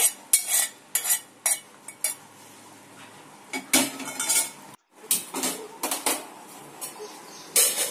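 Stainless-steel kitchen vessels clattering and clinking against each other: a series of sharp, irregular knocks in clusters, with a brief break a little past the middle.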